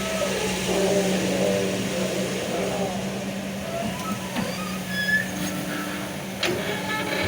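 Kobelco excavator's diesel engine running steadily while the hydraulics work the arm and bucket in sand, with a whine that wavers and shifts in pitch. A sharp knock comes about six seconds in.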